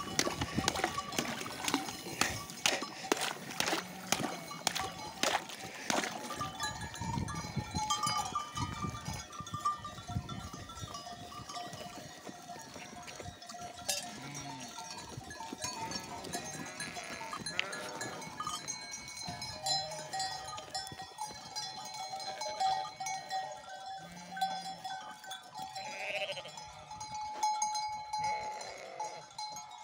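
Large flock of sheep at a water trough: bells clinking and a few bleats. In the first six seconds a wooden stick knocks and splashes in the trough, breaking thin ice on the water.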